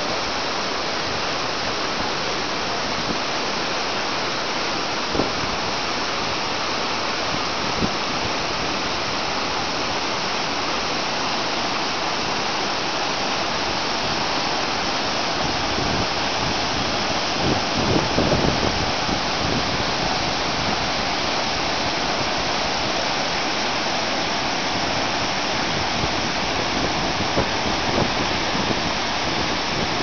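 Waterfall and whitewater stream rushing over boulders: a steady, dense rush of water, with a brief louder low rumble a little past halfway.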